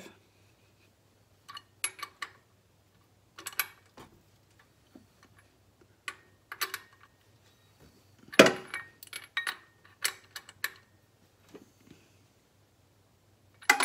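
Metal hand tools clicking and clinking against an engine, in irregular short clusters with the loudest clank about eight and a half seconds in, over a faint steady low hum.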